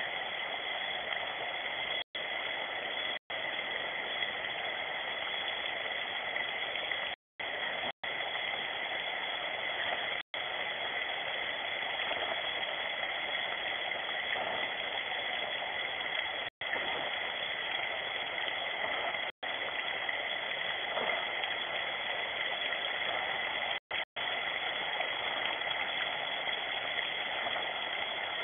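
Steady rain, heard as an even hiss through a security camera's built-in microphone, with a faint steady high tone from the recording. The sound cuts out for an instant several times.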